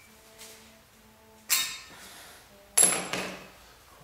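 Two sharp metal-on-metal clanks about a second and a half apart, each ringing briefly, from steel tools striking the counterweight fittings of a steel crankshaft.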